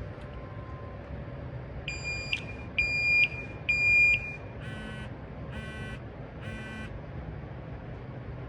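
Top Test CT-580 portable carbon monoxide detector beeping during its power-on warm-up: three loud high-pitched beeps about a second apart, then three shorter, buzzier tones. A steady low background hum runs underneath.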